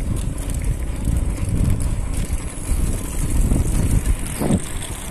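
Wind buffeting the microphone while riding a mountain bike, an unsteady low rumble with a faint rush of riding noise.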